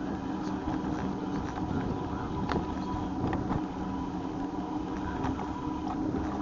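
Steady running noise of a bike in motion, with a constant low hum and a few scattered clicks and ticks.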